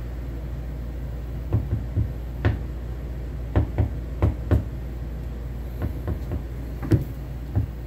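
About a dozen sharp clicks and knocks at irregular intervals, clustered from about a second and a half in until near the end, over a steady low hum.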